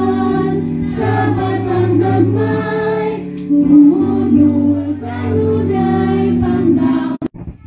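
Group singing of a Christian song, a woman's voice leading through a microphone and PA, with held, steady notes; the singing stops abruptly about seven seconds in.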